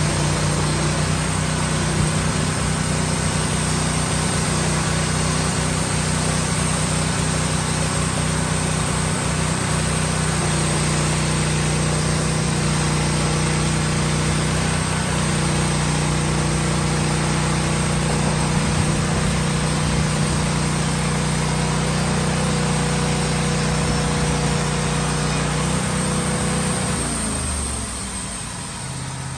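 Woodmizer LT15 band sawmill running steadily under load, its engine tone over the hiss of the blade. Near the end the engine slows with a falling pitch and settles into a lower, quieter run.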